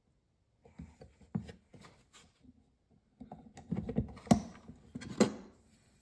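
Handling noise on a wooden workbench: a drilled wooden knife handle scale and small brass parts being picked up and set down, a scatter of light taps and clicks with rustling, and two sharper knocks in the second half.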